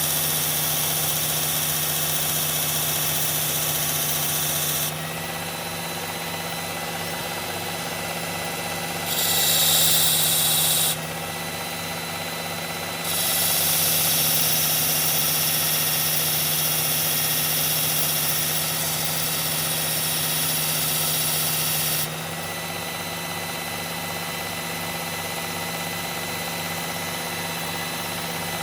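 Electric belt knife sharpener's motor running steadily, with a steel knife blade pressed to the moving abrasive belt in passes: a grinding hiss for the first five seconds, louder for about two seconds around ten seconds in, and again from about thirteen to twenty-two seconds in, with only the motor hum between passes.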